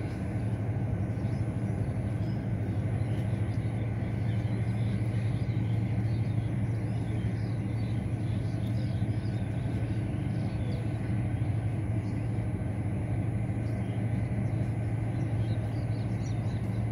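Steady low drone of an engine running at constant speed, unchanging throughout, with faint scattered ticks above it.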